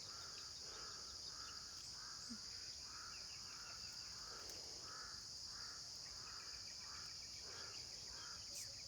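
A steady high-pitched insect chorus of crickets or cicadas, with a run of short, evenly repeated calls about one and a half times a second that stop shortly before the end, and faint scattered bird chirps.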